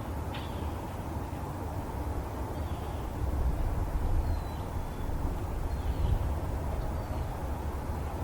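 Outdoor ambience: a steady low rumble that swells a couple of times, with faint, short, high chirps of small birds about five times.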